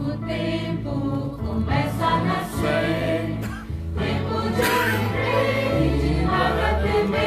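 Gospel hymn sung by a choir over instrumental accompaniment with sustained low notes, played back from a CD.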